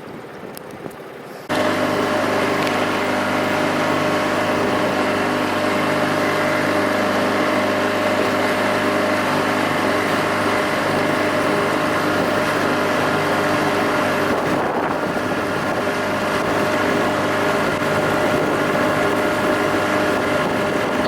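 A motorboat's engine running at a steady speed, with wind noise and water rush, coming in suddenly about a second and a half in.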